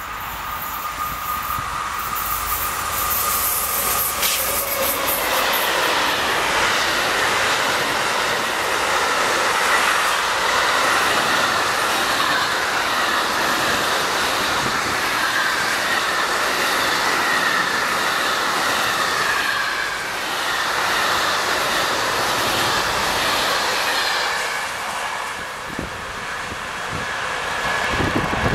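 Electric-hauled freight train of container and tank-container wagons passing close by, wheels rolling and clattering on the rails. Its sound swells about three seconds in as the train reaches the crossing. A high wheel squeal wavers up and down as the wagons go by.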